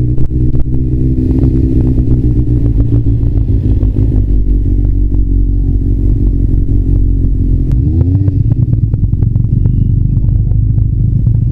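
Kawasaki ZRX400 inline-four engine running steadily while riding, with frequent short crackles over it; the engine note briefly shifts about eight seconds in.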